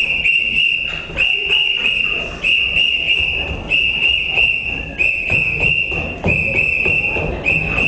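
A whistle blown in about ten short blasts, one after another with brief breaks, keeping time for a group marching, with feet stamping underneath.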